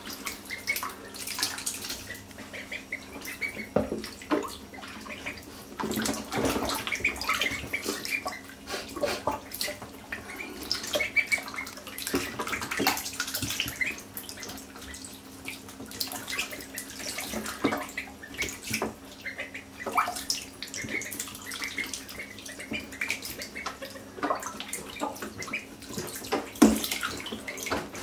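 Call ducklings splashing and paddling in shallow bathwater, with irregular splashes and water lapping against the tub every second or so.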